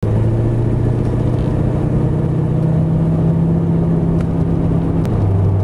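Car engine droning steadily while driving, heard from inside the cabin; its note drops a little about five seconds in.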